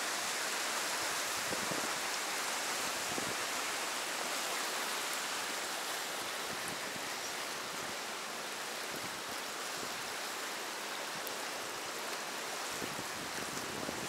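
Fast river water rushing through a narrow rock-walled chute: a steady, even whitewater rush.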